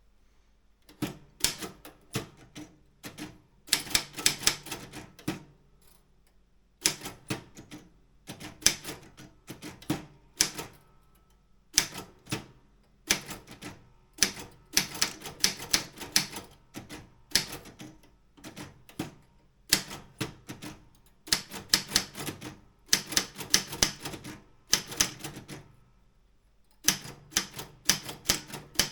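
Optima M16 manual typewriter being typed on: rapid runs of key strikes in bursts of a few seconds, with short pauses of about a second between them.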